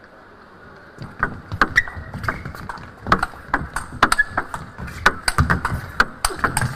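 Table tennis rally: the ball knocking back and forth off the bats and the table in a quick, irregular run of sharp clicks that starts about a second in and keeps going through the rally.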